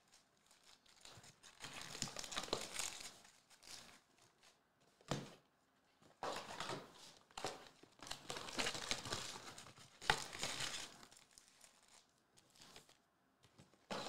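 Plastic wrapping and foil card packs crinkling and tearing as a trading-card hobby box is opened and its packs taken out and stacked, in several spells with a couple of sharp taps.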